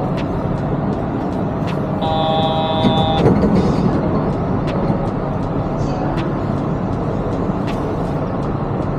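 Steady running noise inside a Yurikamome automated rubber-tyred train car. About two seconds in, a steady tone sounds for a little over a second, followed by a brief louder bump.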